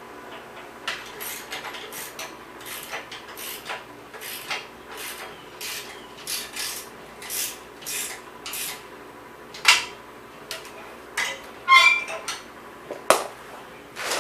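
Hand tools working on bicycle parts: a run of short scraping strokes, about two a second, then a few sharp metal clinks, one of them briefly ringing.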